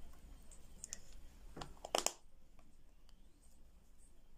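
A few light plastic clicks and taps, the loudest about two seconds in, as small plastic toy figures and a toy capsule are handled and set down on a table.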